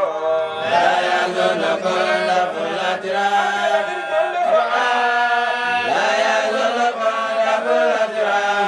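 Men's voices chanting together in an Islamic religious chant, holding long, wavering notes over a steady low held tone.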